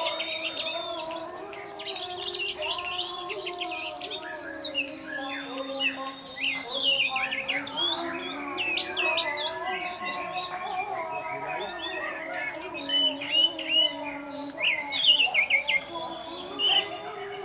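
Orange-headed thrush (anis merah) singing a fast, varied, unbroken stream of chirps and whistles: the continuous 'teler' song of a bird in full voice. A low sustained tone runs underneath.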